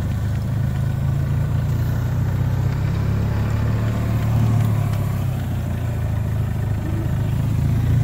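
Utility vehicle's engine running steadily while driving, a low drone.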